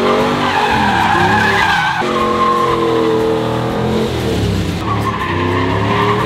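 Loud pickup truck engines revving, their pitch rising and falling, with tyres squealing as the trucks spin their wheels.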